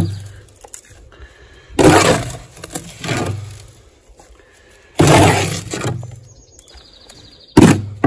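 Hand scoop digging into plaster sand in a wheelbarrow and tipping it into a bucket of wet mix: four gritty scrapes and pours, about one every one and a half to two seconds.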